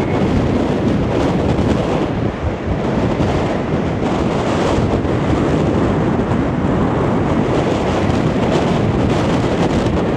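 Strong gusting wind buffeting the camera microphone, a loud continuous rumbling rush with no letup.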